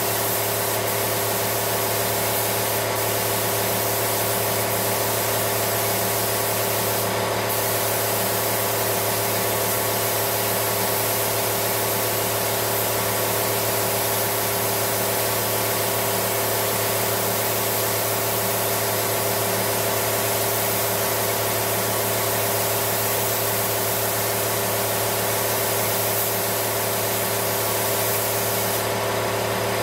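Spray-painting equipment running steadily for a truck primer job: a constant hiss over an even machine hum with several steady tones.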